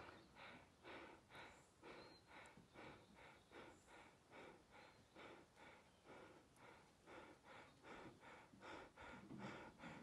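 A dog panting quickly and evenly, about two to three breaths a second.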